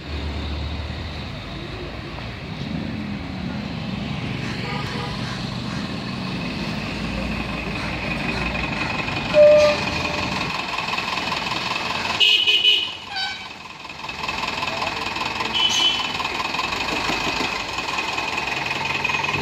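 Street traffic by a roadside bus stop, with a vehicle horn honking briefly a little past halfway and people's voices now and then.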